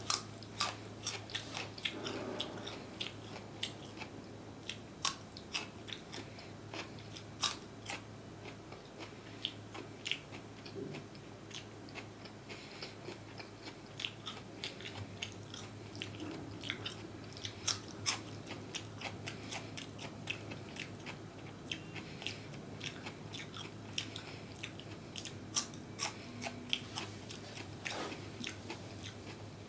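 Close-miked chewing and biting of crunchy food, with irregular sharp crunches and wet mouth clicks, about one to three a second.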